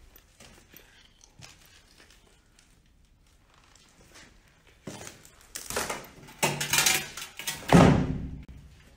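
Loose rubble and broken tile clattering and scraping: quiet at first, then a run of loud knocks and scrapes from about halfway through, the loudest near the end.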